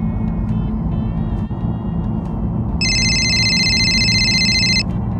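Mobile phone ringtone ringing inside a moving car: one ring of steady high electronic tones about three seconds in, lasting about two seconds, over the steady rumble of road and engine noise.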